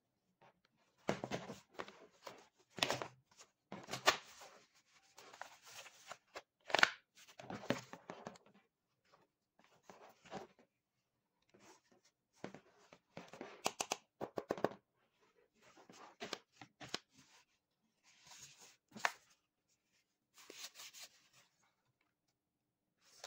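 Hands handling a plastic-shelled motocross knee guard: its straps pulled and peeled with tearing, rustling noises in irregular bursts, and a quick run of clicks about 14 seconds in.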